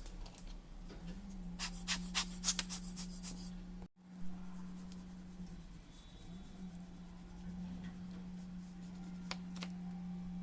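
Scratching and rubbing with a quick run of clicks, then two sharp clicks near the end, over a steady low hum. The sounds come from hands and tools working on a radio-cassette recorder on the bench.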